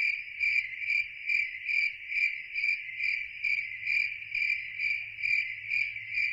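Cricket chirping in a steady high trill that swells in even pulses about twice a second.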